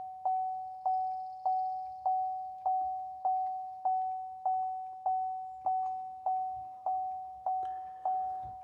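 A 2014 Chevrolet Silverado's dashboard warning chime dinging over and over, a little under two dings a second, each a single clear note that fades before the next.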